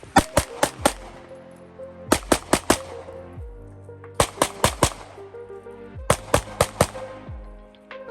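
Pistol shots fired in quick strings of four or five, the strings about two seconds apart, over background music.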